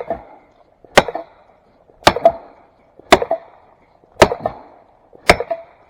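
Felling wedges being driven into the back cut of a tree with heavy strikes, about one a second, each blow followed by a short rebound. The wedges are lifting the tree against its lean to tip it the other way.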